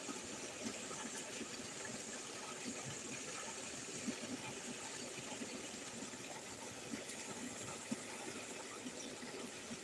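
Water gushing steadily from a pipe outlet and splashing into muddy standing water.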